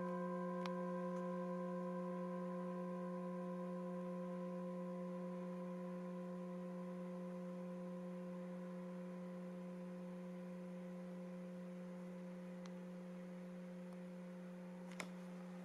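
Tibetan singing bowl ringing out: a steady low tone with several higher overtones, slowly fading, the higher overtones dying away first. A faint click about half a second in and another near the end.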